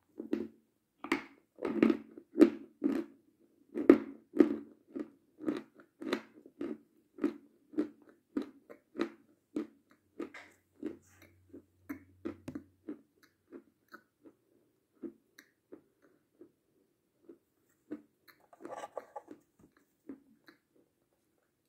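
Mouth chewing and crunching chocolate candy, about two chews a second, loudest in the first few seconds, then slowing and fading to scattered chews. A brief burst of busier mouth noise comes near the end.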